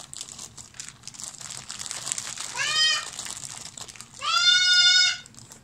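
Plastic bags of miniatures crinkling as they are handled, with a young child calling out twice in a high voice, the second call longer and held for about a second and the loudest sound.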